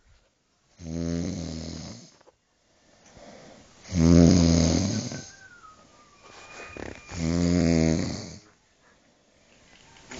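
A man snoring heavily in deep sleep: three long, loud snores about three seconds apart, each a buzzing, lion-like growl on the in-breath.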